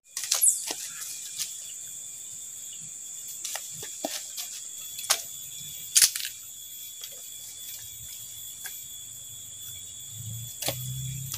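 Sharp, scattered clicks and knocks of dry firewood sticks being handled, snapped and laid into a stone stove for lighting, over a steady high insect drone. A low hum comes in near the end.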